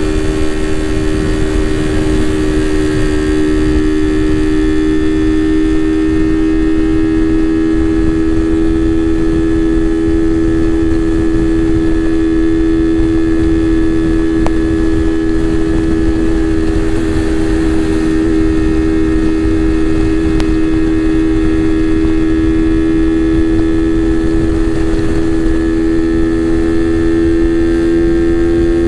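Suzuki Raider 150 Fi's single-cylinder four-stroke engine running at a steady speed over a constant low rush of noise, its note rising slightly near the end.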